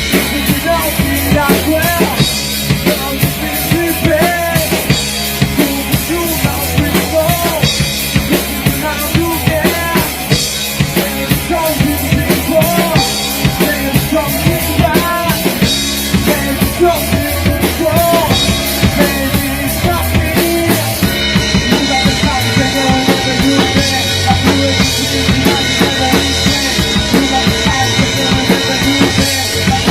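Band demo recording of a rock-style song: a drum kit with bass drum and snare keeps a steady beat under a melody line that bends in pitch. The arrangement changes about two-thirds of the way through.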